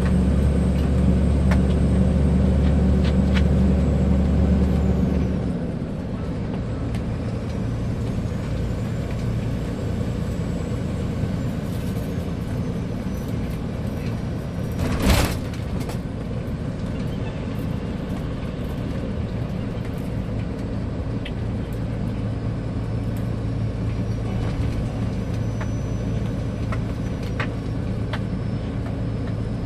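Scania 124L 420 truck's inline six-cylinder diesel running on the road, with a strong low drone that drops to a quieter, steadier note about five seconds in. About halfway through comes one short, loud hiss of air from the truck's air system.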